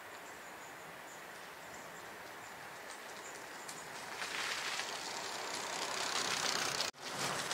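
Bicycle tyres rolling over a leaf-covered asphalt path: a steady hiss that grows louder from about halfway through as the loaded touring bike approaches and passes close by, cutting out for an instant near the end.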